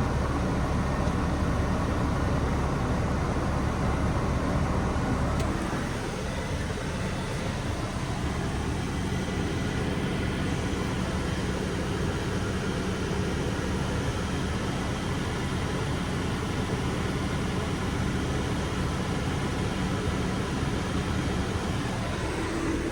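Mercedes Sprinter van engine idling steadily, heard from inside the cab, easing down slightly about five seconds in.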